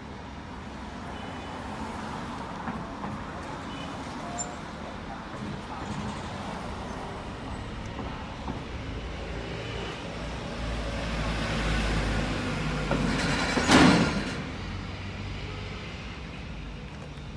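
Truck engine running steadily, swelling louder about ten seconds in, with a short loud burst of hiss-like noise a few seconds before the end.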